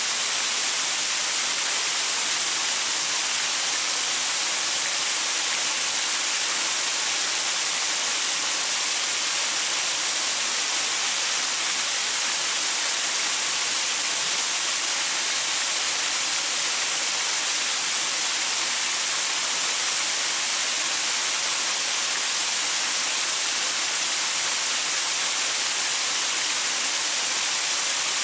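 Waterfall pouring over rocks: a steady, even hiss of falling water, bright, with little low rumble.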